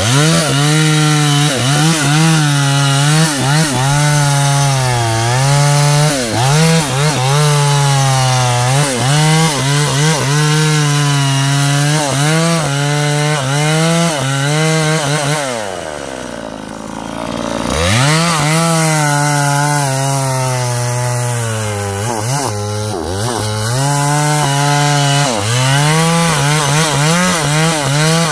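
Two-stroke chainsaw cutting into the base of a teak trunk at full throttle, its pitch dipping and recovering as the chain bites into the wood. About sixteen seconds in it drops to idle for a couple of seconds, then revs back up and carries on cutting.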